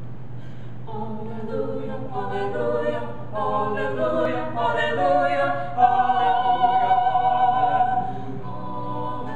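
Mixed vocal quartet of two women and two men singing a cappella in close harmony. The voices enter about a second in, swell to a loud sustained chord, then drop softer near the end.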